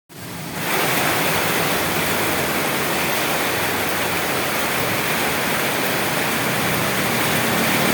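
Steady heavy rain, an even dense hiss that fades in over the first second.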